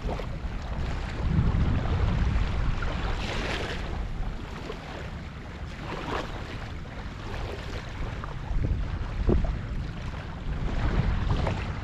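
Gusty wind buffeting the microphone, a low rumble that swells and fades, loudest about a second and a half in and again near nine seconds, with water sounds and a few brief sharper sounds over it.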